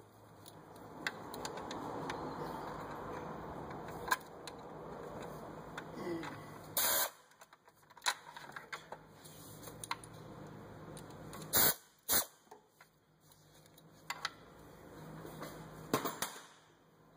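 Scattered clicks and knocks of hand tools against metal, with a few short, louder clatters and faint rustling in between.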